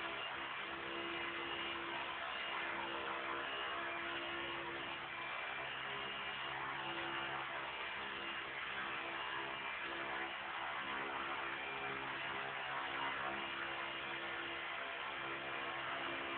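Electric Esky Honey Bee King 2 collective-pitch RC helicopter hovering: a steady whir of the motor, belt-driven tail rotor and carbon main blades, its tone shifting slightly now and then.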